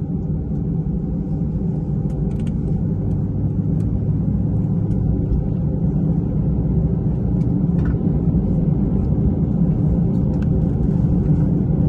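Steady low rumble of an Airbus A320 on the ground, engines and air conditioning heard from inside the cabin, slowly growing louder, with a few faint ticks.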